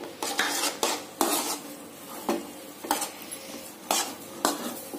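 Spatula stirring a thick semolina mixture in a kadhai, scraping and tapping against the pan in a string of short, sharp strokes, irregularly about every half second to a second.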